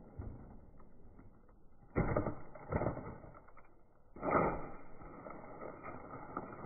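Handling noises from a QB78 air rifle converted to PCP between shots: a few sudden dull clacks and knocks, the loudest about two seconds in and again just past four seconds.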